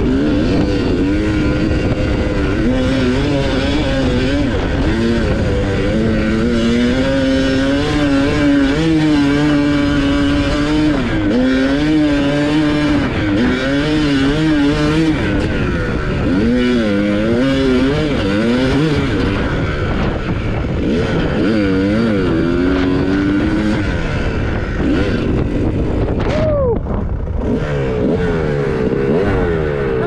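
2001 Kawasaki KX250's single-cylinder two-stroke engine ridden along a trail, its revs rising and falling again and again as the throttle is worked. Near the end it drops off briefly, then revs up sharply.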